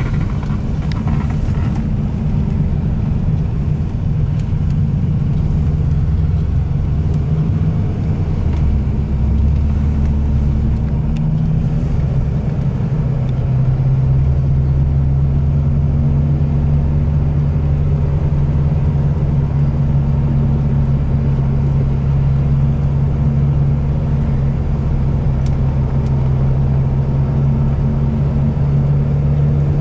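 Classic American car's engine heard from inside the cabin, running steadily at parade pace with a low drone; its note changes about 13 seconds in, then holds even.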